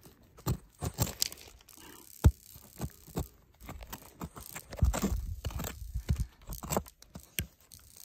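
A large chunk of petrified wood being dug and pried out of rocky ground by hand: scattered scrapes, crunches and knocks of stone on stone. There is a sharp knock about two seconds in and a burst of heavier scraping and rumbling around five seconds.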